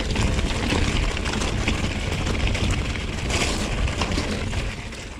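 Mountain bike riding over loose rock and gravel: tyres crunching and the bike rattling in quick irregular clicks, over a heavy rumble of wind on the camera microphone. It fades out near the end.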